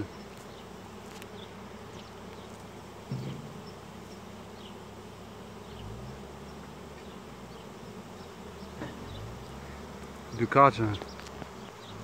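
A swarm of honey bees flying from the hives, a steady, dense buzzing. A voice speaks briefly near the end.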